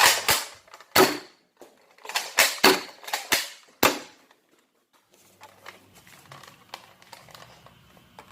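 Sharp plastic clacks and snaps of a Nerf blaster being primed and fired, about six in the first four seconds, then fainter small clicks of handling.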